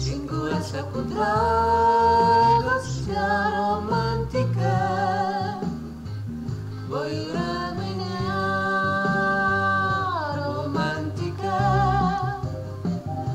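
Karaoke duet of a Romanian song: a voice sings over a backing track, holding two long notes with vibrato, one about a second in and one from about seven to ten seconds in.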